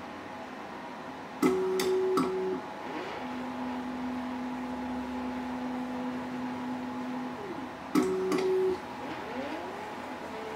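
Stepper motors of a DIY SLS 3D printer moving through a powder-recoating cycle to lay down a new bed layer. Each move is a steady motor whine that starts and ends with a sliding pitch as the motor speeds up and slows down. There are two short louder whines about a second long, each with a click as it starts, about a second and a half in and again about eight seconds in, and a longer lower whine of about four seconds between them, all over a steady background hum.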